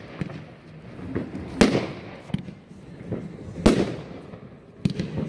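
Consumer fireworks cake from the Evolution Fireworks Fairy Tales assortment firing shots into the air, each shell bursting with a sharp bang. The two loudest bangs come about two seconds apart, with smaller pops and crackle between them.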